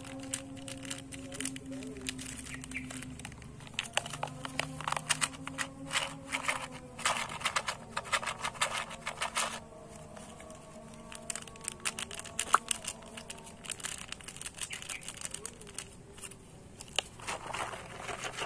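Cucumber seed packet crinkling and crackling in the hands as it is opened and emptied into a plastic cup. The crinkling comes in several bursts with short pauses between, over a faint steady hum.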